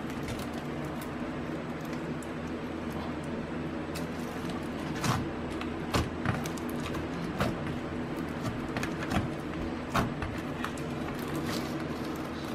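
Blue slime packed with clear plastic beads being pressed and kneaded by hand: a stream of small crunching clicks and pops, with a few sharper snaps in the middle seconds, over a steady low hum.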